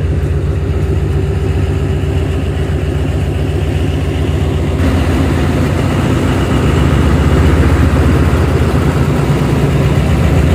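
Diesel locomotive engine running with a deep, steady drone as it hauls a passenger train slowly along the platform. It grows a little louder about six seconds in.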